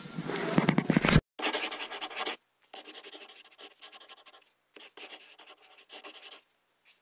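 Pen scratching on paper on a clipboard in short strokes with brief pauses, as a form is filled in by hand. It is preceded by a louder stretch of room noise that cuts off abruptly about a second in.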